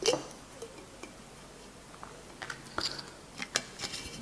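Faint, scattered clicks and ticks of the cap being worked on a glass bottle of apple cider vinegar, with a run of sharper clicks in the second half.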